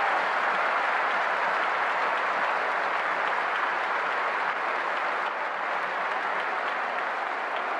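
Large stadium crowd applauding, a steady even wash of clapping with no chant or song in it.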